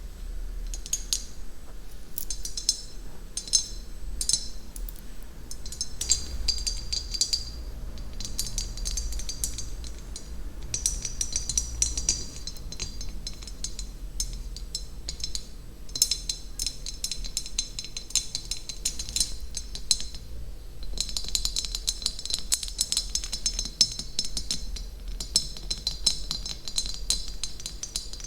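Close-miked ASMR trigger sounds: dense runs of quick, bright clicks and taps with a ringing edge, coming in spells of a few seconds with brief pauses between them.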